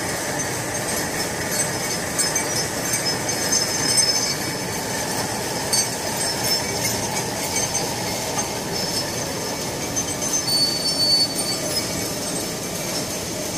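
Automatic plastic cutlery and salt-and-pepper packing machine running: a steady mechanical clatter with thin, high squealing tones over it.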